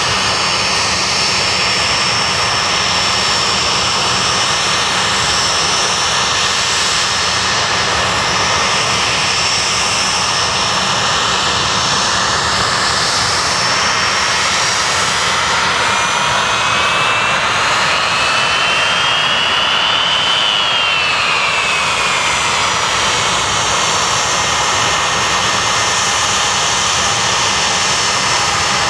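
Blackburn Buccaneer's twin jet engines running at taxi power, a steady loud whine over a rushing roar. About two-thirds of the way through the whine rises and then falls back as the power changes.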